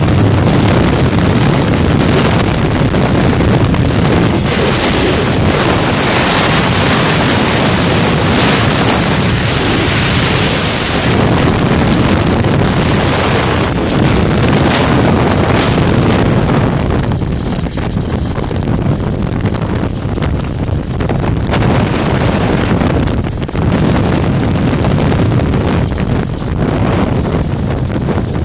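Strong wind buffeting the microphone: a loud, continuous rushing rumble with no clear tone. It eases a little in the last ten seconds, with brief gusts.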